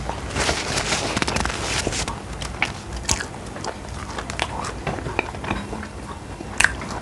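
A person biting into food and chewing it, with a dense crunchy crackle for the first two seconds, then scattered sharp clicks as the chewing goes on.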